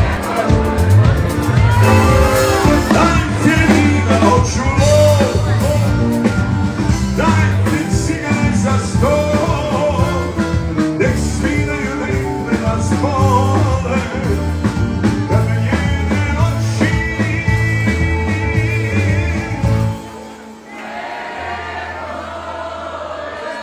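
Live band playing a song with a male singer, over keyboards, bass and drums. About twenty seconds in, the drums and bass drop out and the music goes quieter over a held low note.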